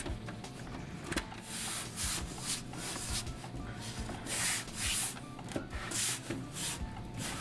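PC case side panel being fitted onto the case: a series of short scraping rubs, panel against case, with a few light clicks and knocks in between.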